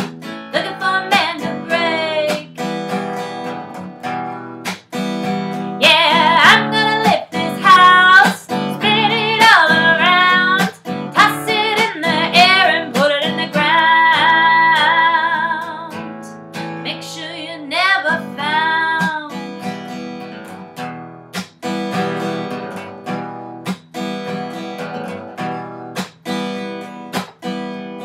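A woman singing to a strummed steel-string acoustic guitar. Her voice carries long, wavering held notes through the first two-thirds, then drops out, leaving the steady strumming alone near the end.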